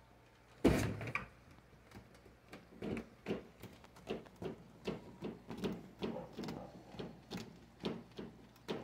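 A sharp thump, followed a couple of seconds later by a run of short soft knocks at about two to three a second.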